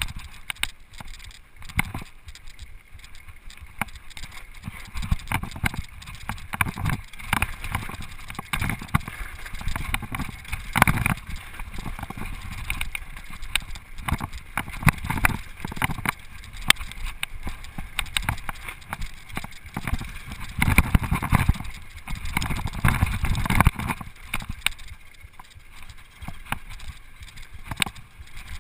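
Flatline full-suspension mountain bike descending a rough gravel trail at speed: tyres crunching over stones and the bike rattling with frequent irregular knocks over bumps. It gets louder and rougher about ten seconds in and again from about twenty seconds in.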